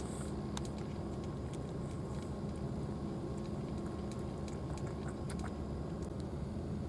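A cat chewing food, with scattered irregular crunchy clicks, over a steady low hum.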